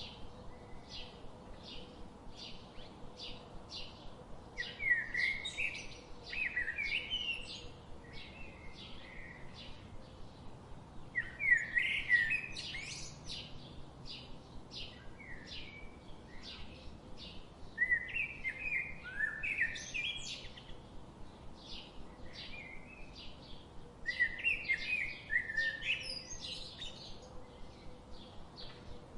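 Songbirds singing: one bird keeps up a steady series of short high chirps, about two a second, while louder rapid warbling song phrases break in every five or six seconds.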